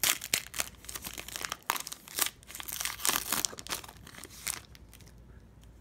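Foil wrapper of a Panini Prizm football card pack crinkling as it is torn open by hand, a run of sharp crackles that dies away after about four and a half seconds.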